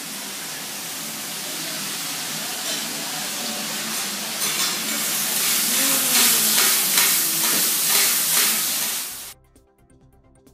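Food sizzling on a teppan griddle, with a metal spatula scraping and tapping on the hot plate. It grows louder and then cuts off suddenly about a second before the end.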